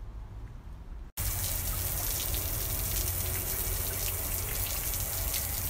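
A low steady hum, cut off about a second in by loud running water that goes on steadily to the end.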